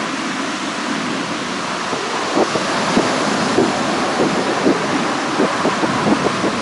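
Distant roar of a formation of Blue Impulse Kawasaki T-4 jets passing overhead, a steady rushing noise.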